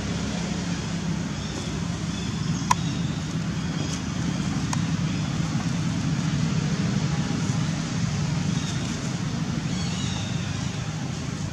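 Steady low hum of a running motor-vehicle engine, with two sharp clicks about three and five seconds in.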